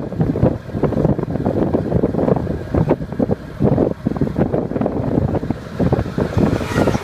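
Wind buffeting the microphone while riding along a road in an open vehicle, a rough, gusting rumble with the vehicle's running and road noise beneath.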